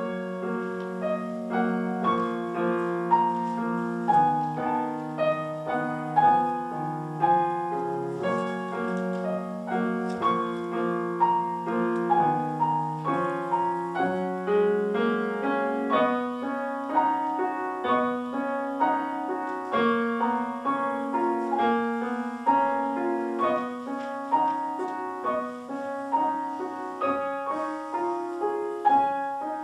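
Acoustic grand piano played four hands by a child and an adult, a classical-style piece of steadily flowing notes over sustained bass notes.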